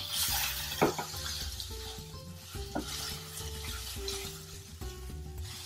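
A wooden spatula stirs and scrapes soaked sago pearls and potato pieces in a frying pan, with a light sizzle and a couple of sharp clinks against the pan. The sabudana khichdi is almost cooked.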